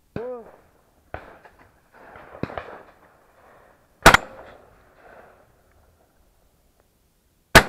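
Two shotgun shots from a Browning Fusion Gold shotgun, very loud and close because the camera is mounted on the gun, about three and a half seconds apart: one about four seconds in and one near the end. Fainter clicks and handling knocks come before the first shot.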